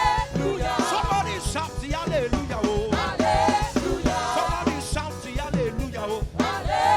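Live gospel praise music: a voice singing a melody over a band with bass and a steady beat.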